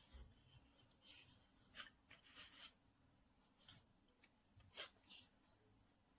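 Faint, brief scrapes and rubs of hands handling the phone box and packaging, about half a dozen short strokes.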